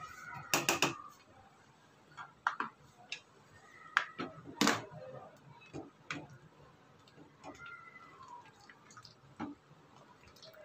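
A serving spoon stirring thick kheer in a metal pot, with scattered, irregular knocks and taps of the spoon against the pot's side.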